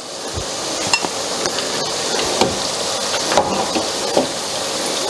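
Batter-coated potato fritters sizzling as they deep-fry in hot oil in a pan. A metal slotted spoon clinks against the pan several times as the fritters are lifted out.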